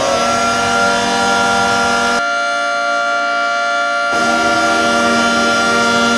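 Hockey arena goal horn blowing a loud, steady chord of several pitches, the upper notes settling at full pitch right after winding up. For about two seconds in the middle its sound goes thinner and duller.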